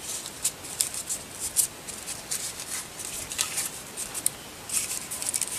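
Folded paper pages rustling and crinkling as they are handled and opened in the hands: a scattered run of short, sharp crackles.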